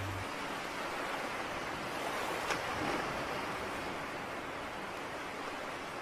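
Shallow stream running over rocks: a steady rushing of water, with a single brief click about two and a half seconds in.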